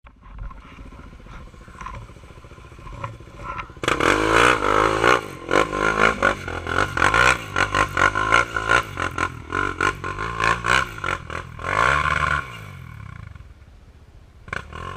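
Quad ATV engine through a Big Gun aftermarket exhaust, running low for a few seconds, then from about four seconds in revved hard again and again, its pitch rising and falling, for some eight seconds before dropping back to a low run near the end.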